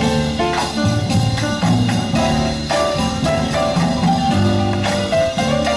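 Music with drums and a melody of short, stepping notes.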